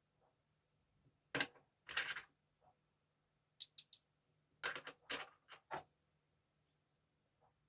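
Scattered knocks and clicks of hard parts being handled: two knocks about a second and a half in, a quick run of three sharp high clicks near the middle, then a cluster of four or five knocks.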